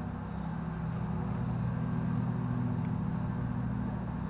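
Steady low drone of road traffic.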